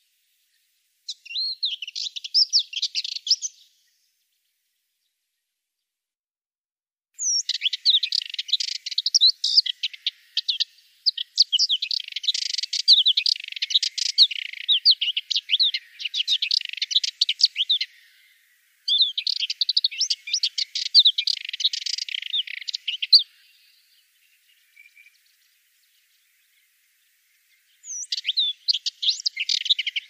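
Subalpine warbler singing: bouts of rapid, high-pitched warbling notes. A short phrase comes about a second in, then a long run of song from about 7 s to 23 s with a brief break, and a new bout starts near the end.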